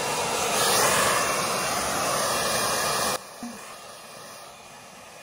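Handheld hair dryer blowing a steady rush of air while drying hair. About three seconds in the sound drops abruptly to a quieter steady level.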